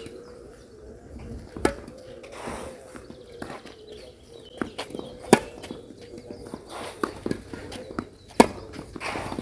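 Tennis rally on a clay court: sharp racket-on-ball hits a few seconds apart, the loudest near the end, with softer ball bounces and shoes scuffing on the clay in between.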